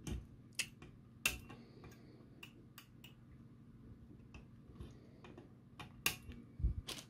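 Flush side cutters snipping the protruding component leads off the back of a circuit board: about ten sharp, irregular snips, the loudest about a second in and again near the end.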